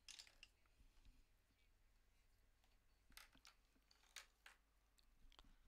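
Near silence: room tone with a few faint, short clicks about three and four seconds in.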